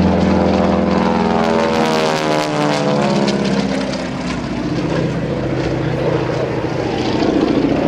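North American T-6 Texan's nine-cylinder Pratt & Whitney R-1340 radial engine and propeller flying past in an aerobatic pass, its pitch falling as it goes by from about one to four seconds in, then holding steady as it climbs away.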